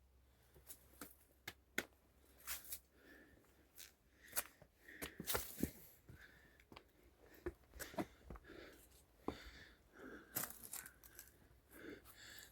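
Irregular, quiet crunching and snapping: many short sharp clicks at uneven intervals.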